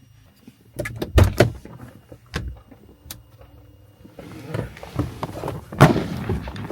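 Clicks and knocks inside a parked car, then a rise of outside noise and a heavy thump near the end: a car door opening and shutting.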